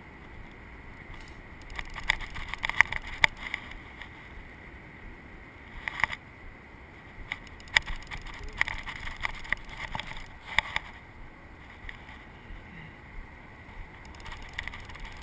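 Conventional trolling fishing reel (Shimano TR series) being cranked by hand. Its gears give off short runs of rapid, sharp clicks, several runs a few seconds apart.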